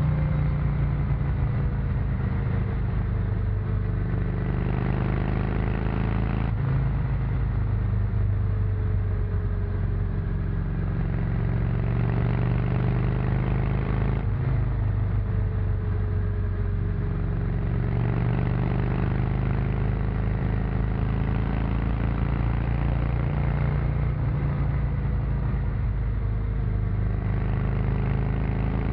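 Honda VT 600 C Shadow's V-twin running through its stock exhaust while under way. The engine note drifts up and down with the throttle and changes abruptly a few times.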